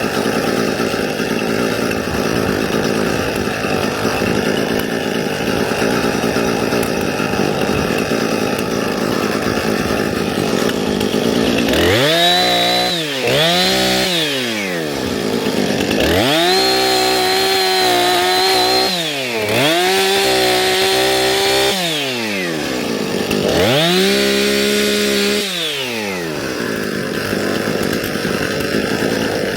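Small two-stroke engine of a handheld landscaping power tool. It runs steadily at first, then from about twelve seconds in it is revved up to full throttle and let back down several times, each rev rising to a steady high whine for one to three seconds before falling away.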